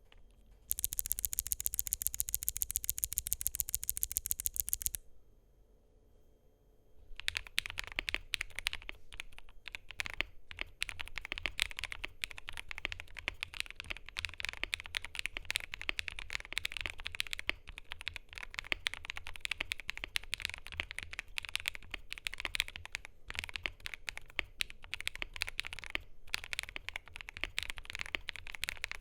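Mechanical keyboard typing: KiiBOOM Moonshadow 81 with lubed, filmed Gopolar OUTVA Yang switches on a polycarbonate plate, keys pressed in a quick irregular stream of short clicks from about seven seconds in. Before that comes a very even, rapid run of sharp, bright clicks, about ten a second, lasting about four seconds.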